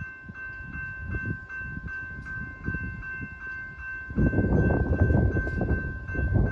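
Railroad crossing bell ringing steadily, about two and a half rings a second. About four seconds in, the low rumble of the slow-moving freight train arriving at the crossing comes in and becomes the loudest sound.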